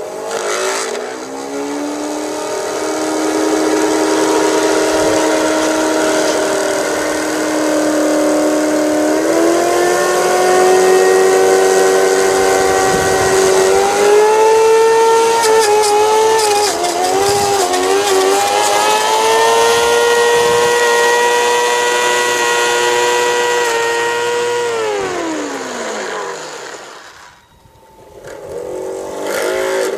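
Motor whine of a 16mm-scale garden railway rotary snow plough. It spins up, steps higher in pitch twice and wavers for a few seconds midway, then winds down and stops about 27 seconds in, and starts spinning up again near the end.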